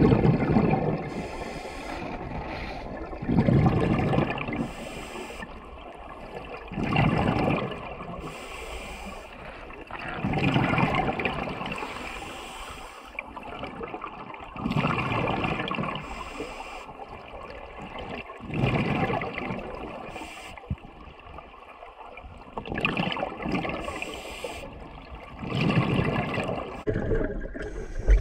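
A scuba diver's regulator breathing, heard underwater: a gurgling rush of exhaled bubbles comes about every three to four seconds, eight times, with a quieter hiss between.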